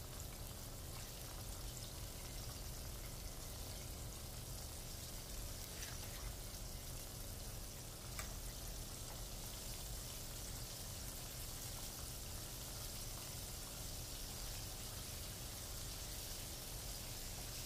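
Breaded chicken breasts frying in hot oil in a frying pan, a steady, faint sizzle, with a couple of light clicks about six and eight seconds in.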